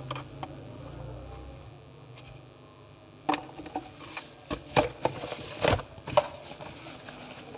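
Handling noise: a run of sharp clicks and taps starting about three seconds in and ending a little after six seconds, with a low hum dying away in the first moments.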